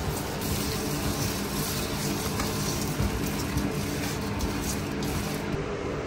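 Steady machine hum over even noise, with a few faint clicks.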